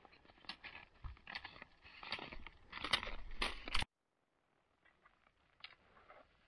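Touring skis with climbing skins sliding and crunching over snow in irregular strokes while skinning uphill. The sound cuts off abruptly just before four seconds in, and fainter crunching follows.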